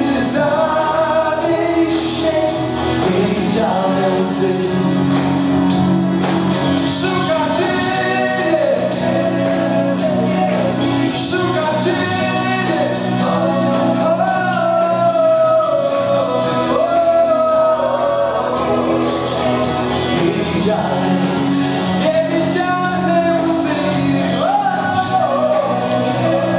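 A man singing a song live into a handheld microphone, over instrumental backing that holds long low notes beneath the melody.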